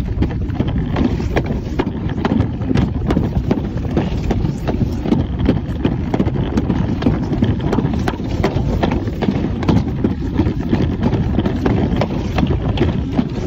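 Alpine slide sled running fast down its fibreglass chute: a steady rumble with a quick, irregular clatter of clicks and knocks.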